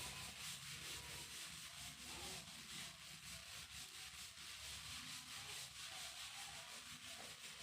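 Faint, steady rubbing and rustling, a continuous run of fine scraping strokes.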